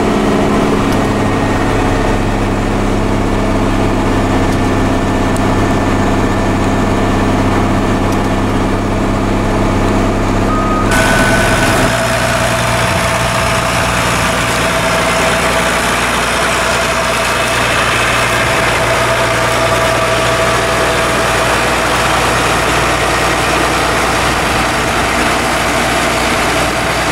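International 5288 tractor's six-cylinder diesel engine running steadily. It is heard first from inside the cab as a low, even hum. About 11 seconds in it switches to the sound from outside beside the tractor, brighter and noisier.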